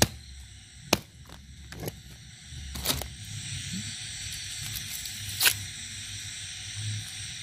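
A knife chopping a frog on a wooden chopping stump: two sharp chops in the first second, then a few scattered sharp knocks and clicks, over a steady background hiss.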